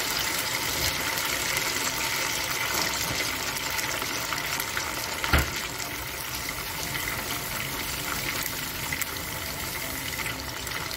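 Chicken pieces deep-frying in hot oil in a frying pan: steady sizzling and crackling, with one louder pop about five seconds in.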